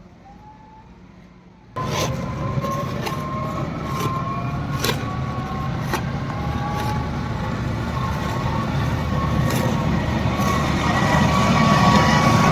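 Large snow-clearing truck running: a steady engine rumble with a whine on top and scattered knocks, cutting in abruptly about two seconds in and growing louder near the end.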